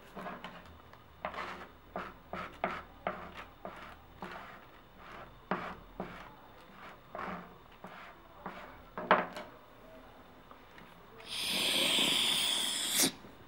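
A plastic card scraping and tapping on a wooden tabletop in a run of short, irregular strokes, chopping a line of powder. Near the end comes a loud sniff lasting about two seconds, the line being snorted.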